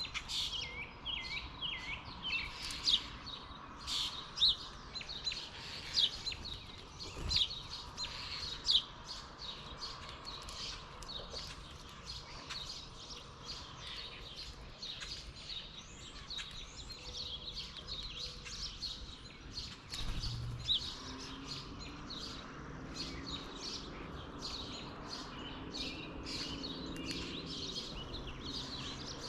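Dawn chorus of small songbirds: many short, high chirps from several birds overlapping, busiest and loudest in the first several seconds, then a steadier, softer stream of chirping.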